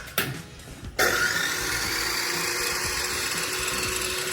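A power tool starts abruptly about a second in and runs steadily with a constant motor pitch, after a single click.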